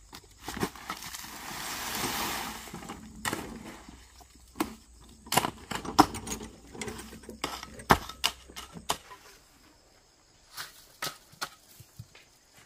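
Rocks knocking and clacking against each other as stones are handled and set in place, in irregular sharp knocks. About a second in there is a scraping rush lasting around two seconds, and near the end a short lull before a few more clicks.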